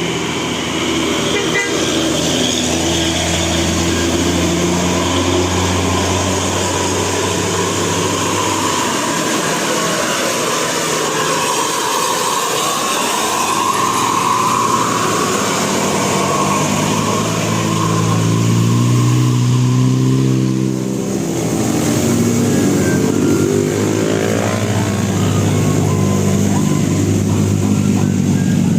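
Buses sounding telolet musical horns over traffic noise: several pitched horn notes held and changing in steps like a tune, with the pitch sliding in places as the buses pass.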